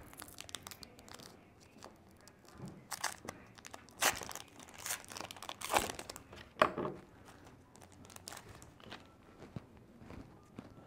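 Wrapper of a 2020 Topps Heritage baseball card pack crinkling and tearing as it is ripped open by hand. It comes as a series of short crackly rustles, the loudest a little after four seconds and around six to seven seconds in.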